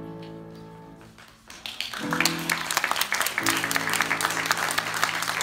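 A violin ensemble's final held chord fading away, then audience applause breaking out about a second and a half in and continuing loudly.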